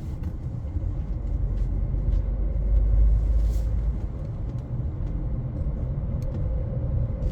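MG ZS 1.0-litre turbocharged three-cylinder engine and road noise heard inside the cabin while cruising at about 120 km/h: a steady low rumble with a faint steady hum, swelling slightly a few seconds in.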